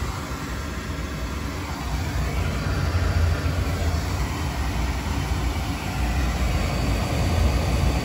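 Beckett oil burner firing: a steady deep rumble from the burner's blower and flame with an even hiss on top.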